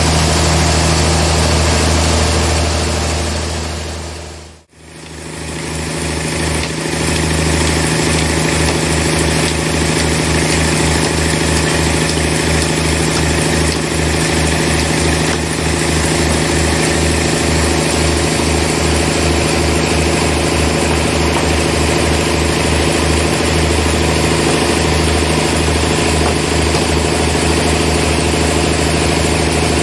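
Band sawmill machinery running with a steady, loud hum. The sound fades out briefly about four and a half seconds in and comes back unchanged.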